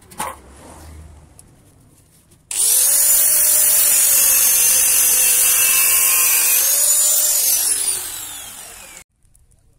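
Electric angle grinder with an abrasive disc grinding the rusted lower edge of a steel bus body panel: it starts suddenly about two and a half seconds in and runs with a steady high whine, then is switched off and winds down, falling in pitch, stopping about nine seconds in. A light knock sounds near the start.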